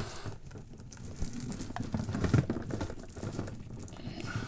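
Cables rustling and knocking irregularly as they are handled behind a games console, with a few small clicks.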